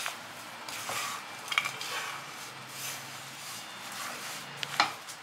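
Silicone spatula stirring a sticky mix of oats, walnuts and raisins in a pan: soft rustling and scraping, with a few light knocks against the pan, the sharpest near the end.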